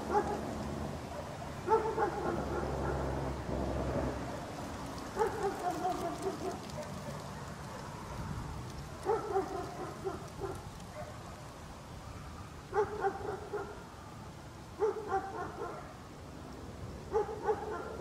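A dog barking in about seven short bouts spread a few seconds apart, each of one to several barks, some drawn out a little and falling in pitch.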